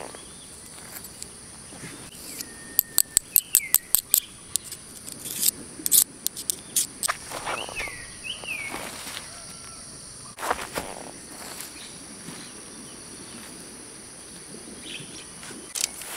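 Night insects, crickets, trilling steadily in one high even band. About three seconds in comes a quick run of about ten sharp clicks, with a few short rising-and-falling chirps and some scattered rustles around it.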